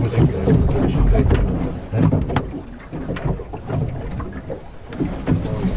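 Ambient noise aboard a sailing boat: an uneven low rumble of wind and water with a few light knocks, and indistinct voices in the background.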